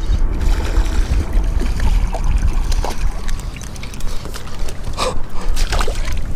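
A hooked smallmouth bass splashing in shallow water at the bank as it is landed, with a couple of sharper splashes about five seconds in. A steady low rumble of wind on the microphone runs underneath.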